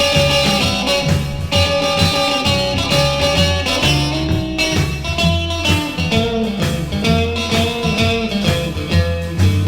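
Guitar, bass guitar and drum kit playing an instrumental passage of a rock song, with no singing.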